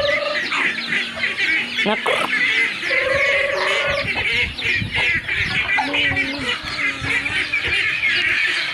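A flock of chickens clucking and calling continuously, many birds at once, with a few longer held calls among the chatter.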